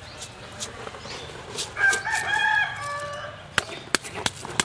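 A rooster crowing once, a held, pitched call lasting about a second and a half, followed by a few sharp clicks near the end.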